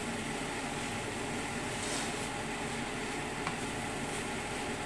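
Mushrooms and red peppers sizzling in a hot frying pan as they are stirred with a spatula, with a couple of light clicks of the spatula against the pan.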